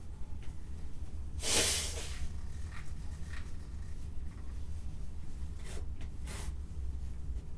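A sneeze: one sharp, noisy burst of breath about one and a half seconds in, followed by a few faint short puffs, over a steady low hum.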